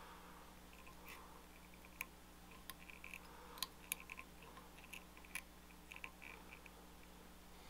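Fly-tying scissors snipping EP brush fibres at the hook eye: a handful of faint, sharp snips spread over a few seconds.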